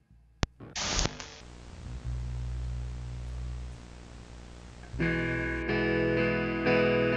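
A sharp click, then a short burst of static and a steady tape-like hiss with a low hum; about five seconds in, an electric guitar starts strumming chords through effects.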